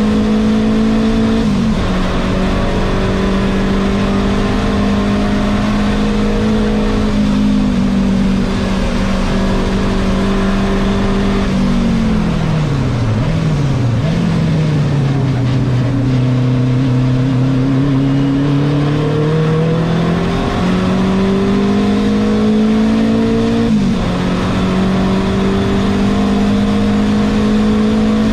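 Renault 5 Turbo 2's turbocharged four-cylinder engine heard from inside the race car's cockpit, held at high revs for long stretches. About twelve seconds in the revs drop steeply as the car slows for a corner, stay low for a few seconds, then climb back up, with brief dips at gear changes.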